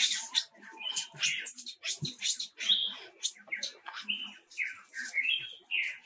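Many short, high-pitched animal chirps and squeaks in quick succession, some sweeping up and back down in pitch, others short level notes.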